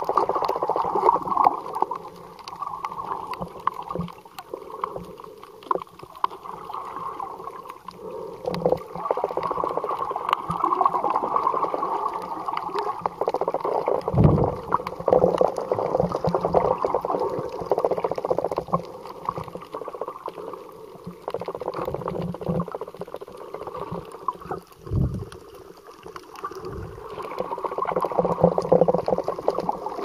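Underwater sound through a snorkeler's camera: a continuous crackling water noise that swells and fades every few seconds, with a couple of low thumps, one around the middle and one later on.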